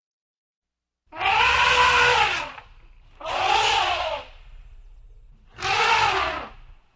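An animal calling three times, each call loud, about a second and a half long, rising then falling in pitch.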